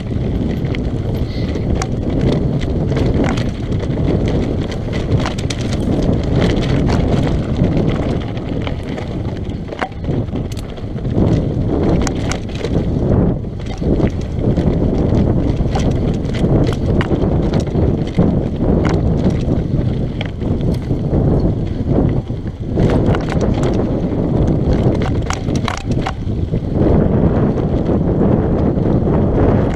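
Mountain bike riding fast down a rocky dirt trail: knobby tyres rumbling and crunching over gravel and loose stones, with frequent sharp clicks and rattles from the bike over rough ground.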